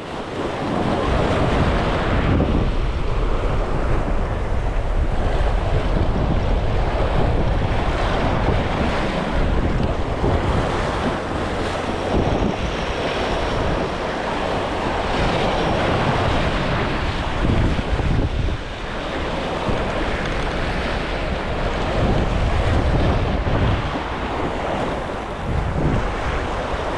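Wind buffeting the microphone over waves washing against jetty rocks: a steady rush that swells and eases.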